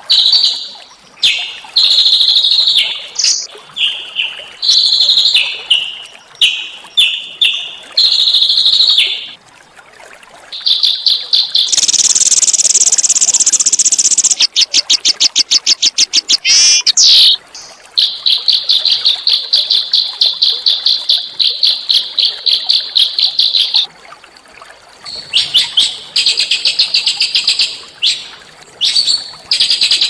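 Small songbird singing a fast, varied song of harsh 'tembakan' (shot) notes: short high chirping phrases, then about halfway a rasping buzz and a rapid run of clicks, followed by a long fast trill.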